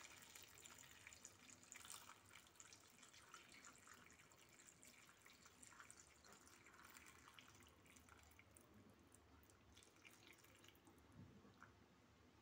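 Water poured in a thin stream onto sliced potatoes and olives in a clay tagine: faint splashing and trickling that thins out over the last couple of seconds.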